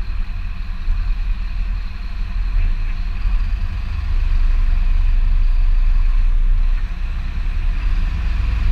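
Fire engine's diesel engine running, a steady heavy rumble that gets louder about four seconds in.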